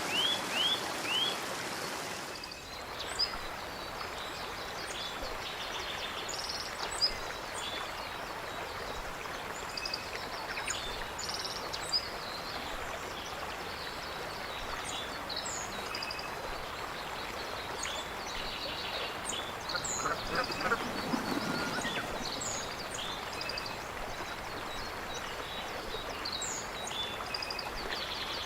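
Many small birds chirping and calling over a steady wash of running water, with a louder, lower call about twenty seconds in. In the first two seconds a quick series of rising chirps ends at a cut.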